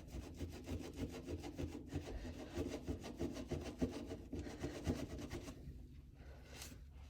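A barely wet sponge loaded with Bar Keepers Friend powder scrubbing a Spyderco K390 steel knife blade: quick, gritty back-and-forth rubbing strokes that stop about five and a half seconds in.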